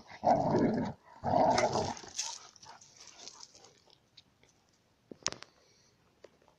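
Pitbull and Czechoslovakian wolfdog play-growling while wrestling: two loud, rough growls in the first two seconds. After that come quieter scuffs and clicks of paws on gravel, with one sharp click about five seconds in.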